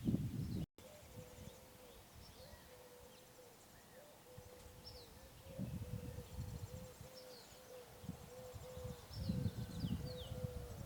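Small birds chirping, with a steady wavering low tone underneath and gusts of wind rumbling on the microphone in the second half.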